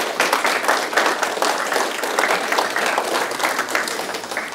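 Audience applauding: dense, steady clapping from many hands that tapers off near the end.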